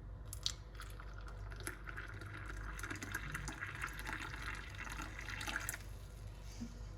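Hot boiled water being poured into a cup over ground cinnamon. The stream runs steadily for about five seconds and stops shortly before the end.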